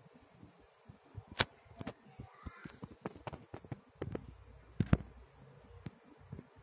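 Irregular sharp clicks and knocks, the loudest about a second and a half and five seconds in, over faint room noise.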